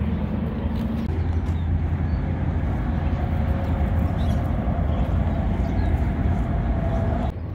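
Steady low rumbling background noise with no distinct event, its level dropping off shortly before the end.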